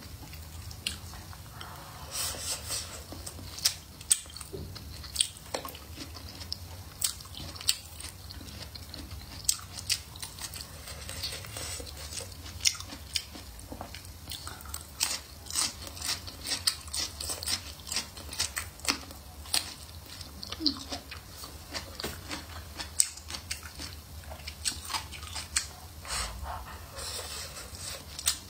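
Close-up mouth sounds of a person biting and chewing blistered green peppers and stir-fried radish and pork slices: irregular wet clicks, smacks and light crunches, several a second.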